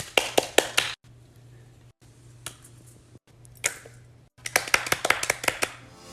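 Fidget toys clicked and tapped by hand: quick clusters of sharp clicks, a few lone taps, then a fast run of clicks near the end.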